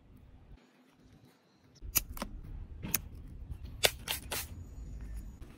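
Handling noise from a tyre-repair kit: a few sharp, irregular clicks and taps as the tools and a red-capped bottle are picked up and set down, over a low rumble.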